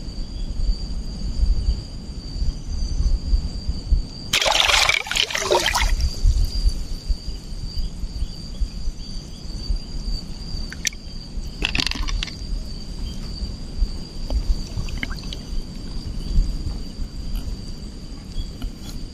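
Muffled underwater sound of moving water against the microphone, with a loud rush of air bubbles about four seconds in and a shorter one about twelve seconds in.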